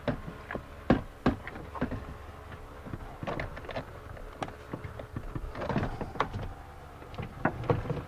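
Hard plastic sliding-door trim panel being worked upward and off the door: irregular clicks, knocks and rubbing of plastic against the door, with a sharp knock about a second in and another near the end.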